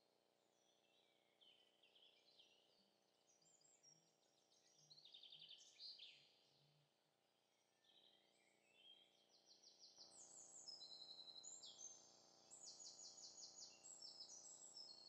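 Faint songbirds singing: varied chirps and short trills, with a run of rapid repeated high notes in the second half.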